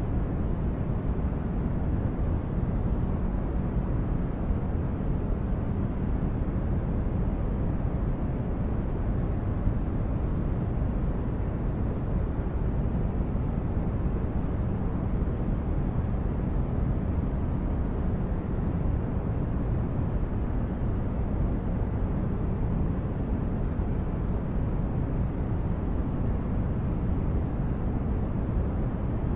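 Sci-fi spaceship interior ambience: a steady, deep rumbling drone of brown-noise-like hiss, even throughout with no distinct events.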